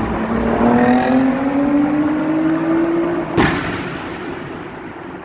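Turbocharged V6 car engine revving, its pitch climbing steadily for about three seconds, then a sharp crack about three and a half seconds in, after which the engine sound dies down.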